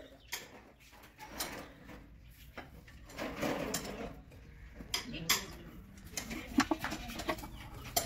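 Steel hand tools and bolts clinking against a Toyota Innova engine block during teardown: irregular sharp metallic clicks and clatter, with a longer scraping sound about three to four seconds in.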